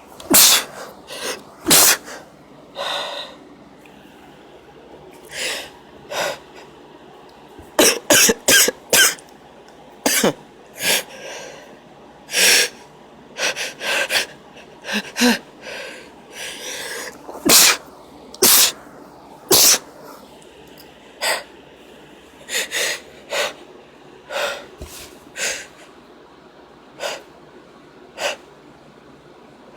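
A woman sneezing, sniffing and catching her breath in many short, sharp bursts, some in quick runs. The sneezes are induced by tickling inside her nose with wadded-up toilet paper.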